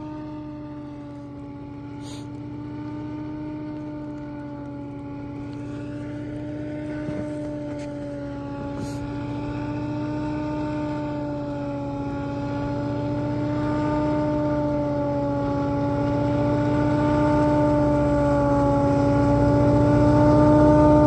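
Diesel locomotive approaching along the track, its horn held in one long steady note over the low rumble of its engine, growing steadily louder as it nears.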